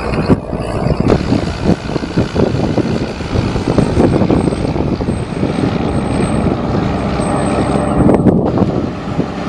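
Rába 245 articulated tractor's six-cylinder diesel engine running hard under load while pulling a cultivator, with abrupt jumps in the sound about a second in and again near the end.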